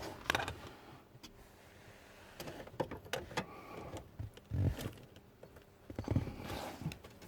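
Hand tools working the shift cable end loose at the steering column of a 2003 Chevy Silverado: scattered clicks, knocks and scrapes of a screwdriver prying at the cable fitting, with a few dull thumps.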